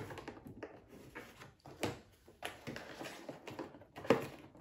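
Hands handling a cardboard advent calendar box: three sharp taps or knocks about two seconds apart, with light rustling of packaging between them, as a box is opened and a small candle taken out.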